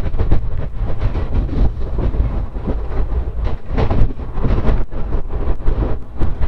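Indian passenger train coach running along the track, heard from its open door: a loud, steady rumble of steel wheels on rails with frequent clicks and knocks.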